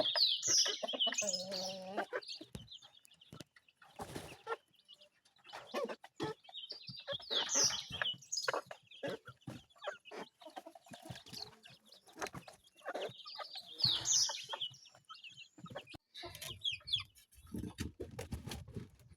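Young chicks peeping in bursts of high cheeps, with a hen's lower call and scattered knocks and taps around them.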